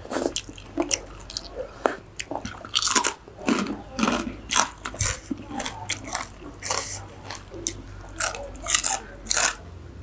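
Crunching bites and chewing of crispy fried pork rinds (khaep mu): many short, sharp crackles in an irregular run.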